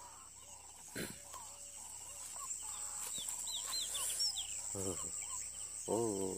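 Birds calling in the open: a string of short, quick chirps, then a longer wavering call starting near the end, over a thin steady high tone.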